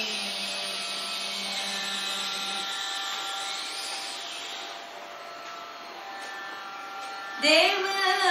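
A steady buzzing sruti drone with a woman's long held Carnatic sung note that fades out about two and a half seconds in. Her singing resumes with a new phrase near the end.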